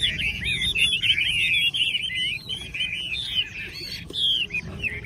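Chinese hwamei (laughing-thrush) singing a fast, unbroken run of varied whistled phrases full of gliding notes, over a low steady background rumble.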